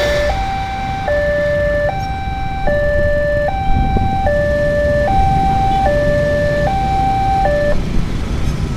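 Level-crossing warning alarm from the loudspeaker on the signal post: an electronic two-tone signal alternating between a lower and a higher note about every 0.8 s. It stops near the end as the barrier starts to rise, the sign that the trains have cleared the crossing. A low engine rumble from waiting motorcycles runs underneath.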